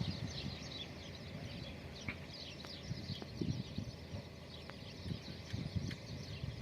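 Small birds chirping busily in many short, quick notes, over a low uneven rumble.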